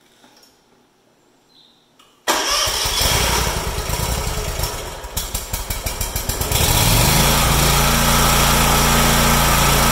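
Kawasaki FX691V 22 hp V-twin on a SCAG Tiger Cat mower being started by its electric starter. It cranks in uneven pulses for about four seconds, catches, rises in pitch and settles into steady running without surging, its carburetor's leaking build-port plugs now replaced.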